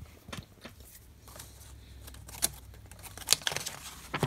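Glossy paper pages of an instruction booklet being turned and handled: a series of short sharp crinkles and rustles, the loudest a little past the middle.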